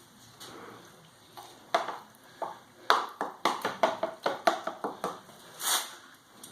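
A scoop knocking and tapping against buckets and pans as wet paper-and-sawdust pulp is ladled into briquette pans: about a dozen sharp, irregular knocks over roughly four seconds, one of them with a brief ring.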